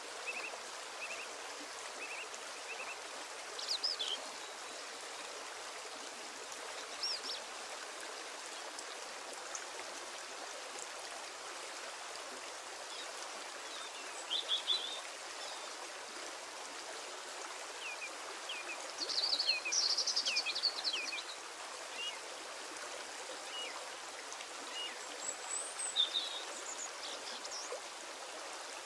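Steady hiss with short high bird chirps now and then, coming thickest in a run about two-thirds of the way through.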